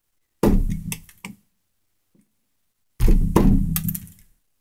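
Two hard knocks about two and a half seconds apart, each ringing on for about a second, from work on an old wall light switch that is stuck fast in the wall.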